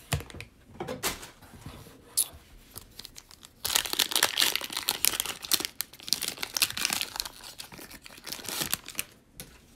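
Foil wrapper of a 2020 Panini Prizm football card pack being handled with a few light rustles and taps, then torn open and crinkled about four seconds in.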